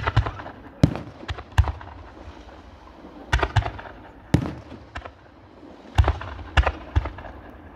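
Fireworks display: a ground-fired barrage sending up shots that burst overhead, heard as about a dozen sharp bangs at irregular intervals, some in quick pairs, with a short lull near the middle.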